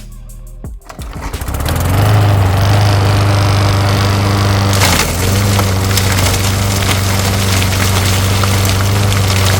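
Gas lawn mower engine comes up to speed about a second in and runs steadily under load while mulching leaves, with a brief dip in speed about five seconds in as it bogs into a heavier patch.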